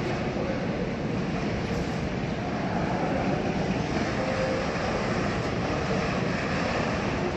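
Freight train of tank wagons rolling through, a steady rushing running noise of wheels on rail with no distinct beats.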